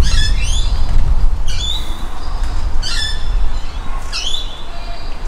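A bird squawking over and over, a harsh call with quick rising strokes about every second and a half, over a steady low rumble.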